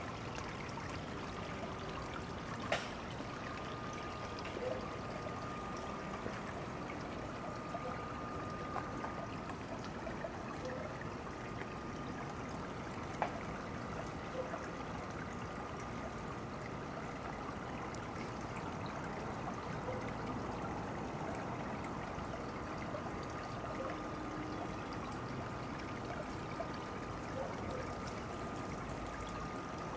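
Steady trickle of water running over the stones of a small garden water feature, with a faint steady high tone and two brief clicks.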